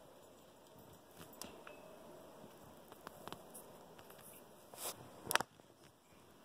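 Faint scuffing and crunching in snow, with scattered small clicks and a louder crunch ending in a sharp click about five seconds in.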